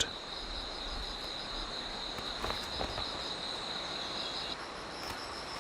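Forest insects trilling: a steady, high-pitched, finely pulsing trill that stops about four and a half seconds in, as a second, slightly higher trill takes over.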